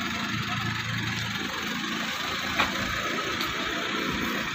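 Pickup truck engine idling steadily, with one sharp click about two and a half seconds in.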